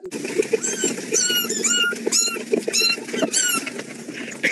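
A small animal giving a rapid string of short, high-pitched squeaks, about two a second, each bending in pitch, over a low scrabbling patter.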